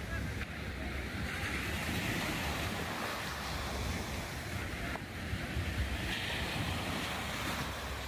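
Surf washing onto a beach, two waves surging in, the first a couple of seconds in and the second near the end, with wind buffeting the microphone.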